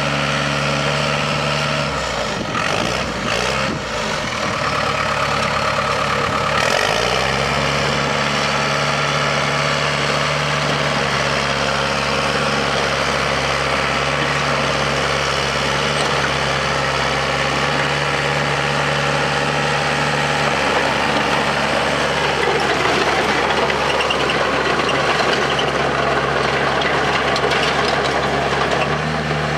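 The diesel engine of a 1991 Dresser TD8G crawler dozer runs steadily as the dozer drives off on its tracks. The engine note drops for a few seconds near the start, then comes back up.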